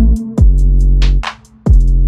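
Electronic background music with a heavy, booming bass drum and held bass notes, breaking off briefly about a second and a half in before the beat comes back.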